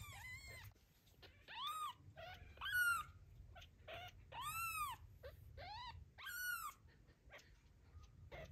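Newborn kitten mewing repeatedly: a string of short, high cries, roughly one a second, each rising and falling in pitch, the loudest about three seconds in. These are the distress calls of a kitten left alone, crying for its mother.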